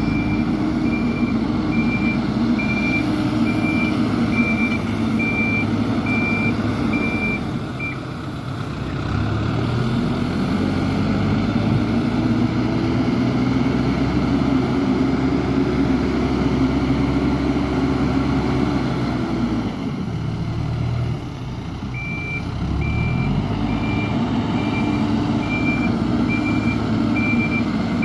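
A heavy vehicle's engine running under load, with its reversing alarm beeping at an even pace for the first several seconds and again in the last six or so. In between, the engine rises in pitch and holds, then drops away about twenty seconds in before rising again as the beeping returns.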